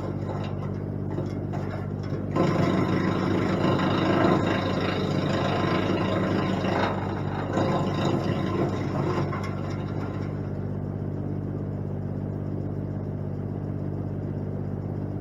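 Engine of a wood chipper running steadily. From about two seconds in until about ten seconds in, a louder rough grinding noise rides over it as branches are fed in and chipped. The engine then runs on without load.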